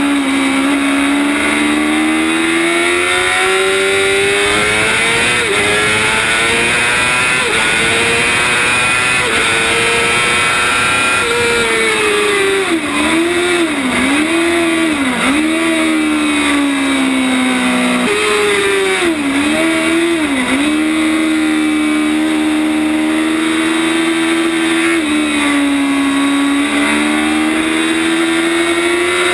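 Yamaha R6 600 cc inline-four sport-bike engine at high revs on track, the pitch climbing and stepping down with each upshift, then dipping and rising sharply several times in quick succession as it shifts down for corners, twice over. Steady wind rush throughout.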